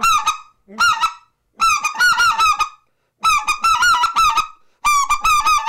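RedBone short-reed goose call blown in clear-air clucks, imitating a Canada goose: quick high squealing notes, each cut off sharply by a tongue stop, in five runs of several notes separated by short pauses.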